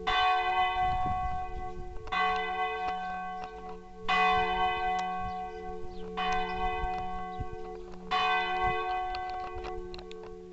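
The campanone, the largest of the church's four bells, swinging full-circle ('a distesa') to ring noon, its clapper striking about every two seconds while the bell's low hum keeps sounding between strokes.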